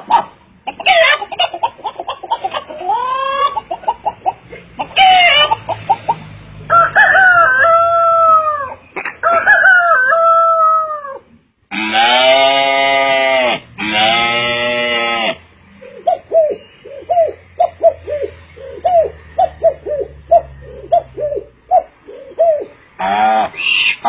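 A man imitating farmyard fowl with his voice: a string of short gliding calls, then two long, loud rooster crows about halfway through, followed by rapid, evenly repeated hen-like clucks.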